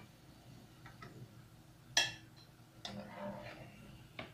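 Wire spider skimmer clinking against the metal pan and plate while fried Oreos are lifted from the oil: a few light taps and one sharp, ringing clink about two seconds in.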